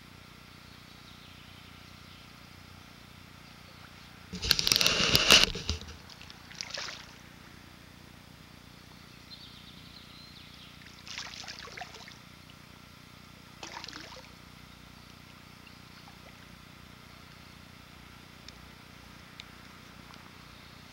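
A hooked bream splashing at the surface of a stream while being played in: one loud splash about four and a half seconds in, then a few smaller splashes.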